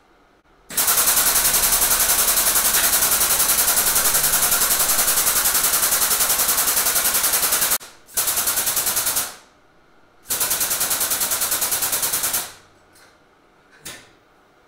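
Air-over-hydraulic pump of a lift table raising a riding mower, running in rapid, even pulses. It runs in three bursts: a long one of about seven seconds, then two short ones of one and two seconds.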